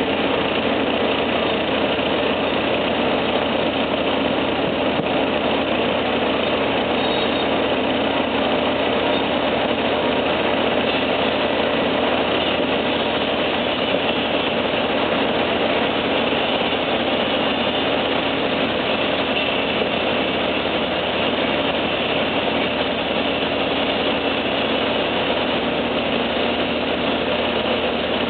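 Heavy diesel machinery engine running steadily at an even speed, with no revving or change in pitch.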